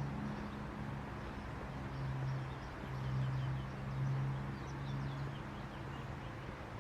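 Low, steady engine hum of city traffic, swelling and easing, with small birds chirping in quick short notes, mostly in the middle.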